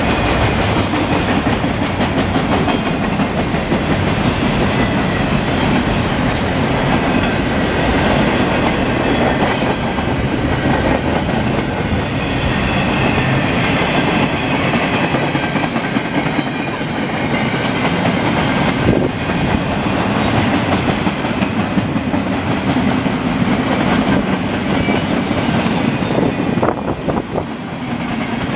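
Intermodal well cars of a freight train rolling past, loaded with double-stacked containers and then running empty: the steady running noise of steel wheels on the rails with the clickety-clack of the trucks.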